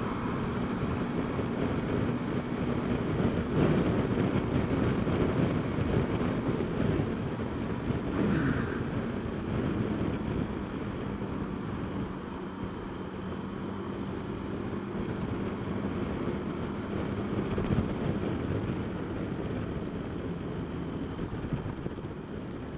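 Honda Dio scooter's engine running steadily while riding in traffic, with wind rushing over the microphone.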